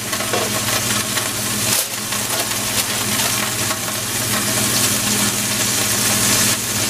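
Venison backstrap pieces searing in hot oil in a cast iron skillet: a steady sizzle.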